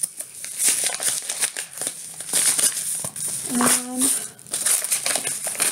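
Yellow padded paper mailer envelope being torn open and handled, its paper crinkling and ripping in irregular bursts. A short hummed vocal sound about three and a half seconds in.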